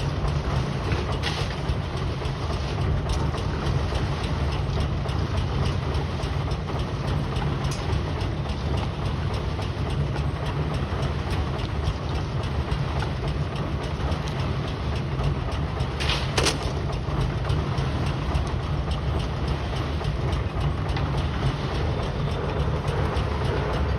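Pile-driving rig's heavy engine and driving machinery running in a steady low rumble, with a sharper metallic knock a little after the start and another about sixteen seconds in.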